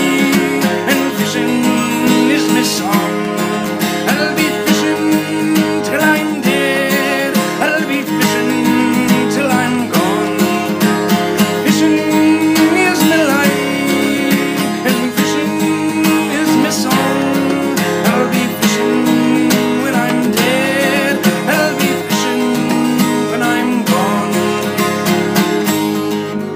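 Instrumental Irish folk music: acoustic guitar playing chords, with a wavering melody line above it.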